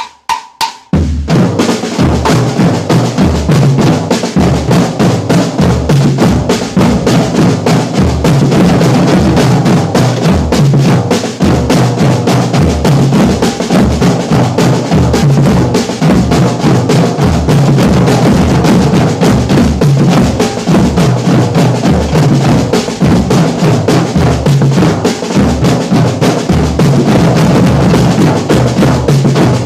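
A group of drummers playing snare and tom drums on stands with sticks and mallets, all together in a loud, steady rhythm that comes in about a second after a brief gap.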